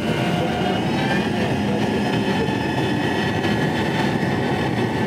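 Triple Seven Marine 627 hp outboards, supercharged 6.2-litre V8s, running steadily at speed. The sound holds even, with a steady high whine over the engine noise.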